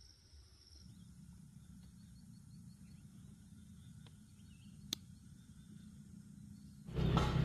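Faint rural outdoor ambience: a steady high insect trill that stops about a second in, then a low hum with a single sharp click about five seconds in. A much louder sound cuts in just before the end.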